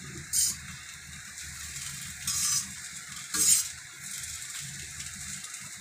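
A metal spatula stirring poha in a metal kadai: three short scraping strokes against the pan, the loudest about three and a half seconds in, over a steady low background.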